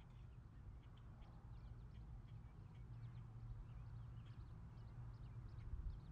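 Faint chirping of small birds, many short high calls, over a steady low rumble.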